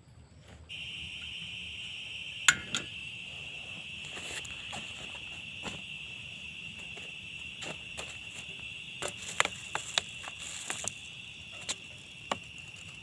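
A steady, high-pitched insect chorus that starts abruptly just under a second in. Scattered sharp clicks and knocks sound over it, the loudest about two and a half seconds in, with a cluster of them around nine to eleven seconds.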